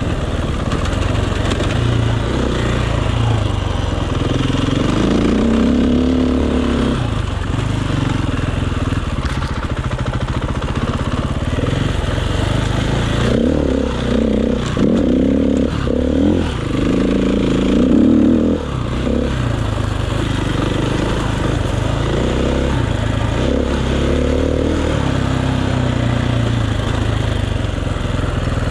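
Enduro motorcycle engine revving up and down as the bike is ridden off-road, heard close from the rider's chest. The pitch climbs and drops again and again, with a run of quick throttle blips and drops in the middle and the loudest rev just after.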